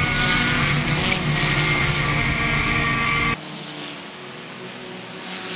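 A race car's engine running hard at speed, heard loud through the car's on-board camera. About three seconds in it cuts abruptly to a much quieter, thinner sound of the field of race cars circling the track, heard from the grandstand.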